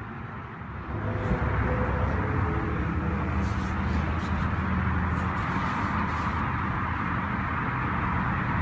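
Lamborghini Huracán LP610-4 switched on and running with a steady low hum, heard inside the cabin, coming on about a second in and holding an even level.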